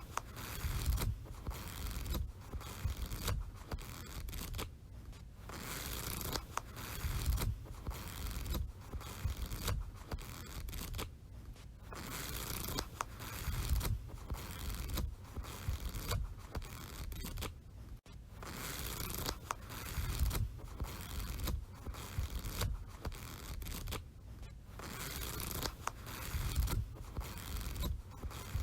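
Sheets of notepad paper being handled, a run of repeated paper rustling and tearing strokes, each about a second long, with short gaps between them.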